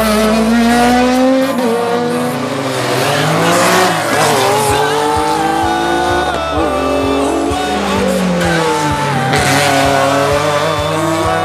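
Race car engines revving hard in succession, pitch climbing and breaking off at each upshift, with some falling sweeps as cars pass or downshift. Tyre squeal comes in at times.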